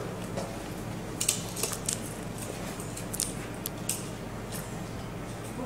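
A handful of sharp, irregularly spaced clicks and taps of steel-tip darts at a bristle dartboard during rapid throwing at the bull, over a steady low hum.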